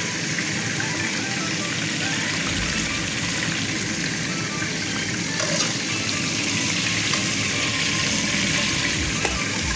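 Hot oil sizzling steadily in a frying pan as fried tomatoes are lifted out of it with a slotted metal skimmer.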